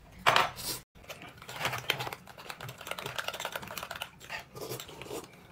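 Close-up eating sounds: a dense run of rapid small clicks and crackles from chewing, broken by a few short low murmurs.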